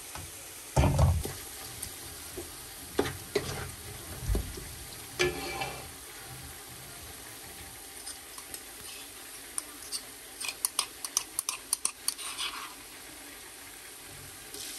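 Onions sizzling steadily in a pot, with a few separate knocks of utensils against cookware in the first six seconds and a quick run of clicks and scrapes from stirring between about ten and twelve and a half seconds in.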